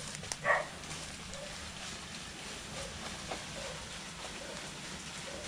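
A short, sharp animal call about half a second in, followed by a few fainter calls, over a steady background.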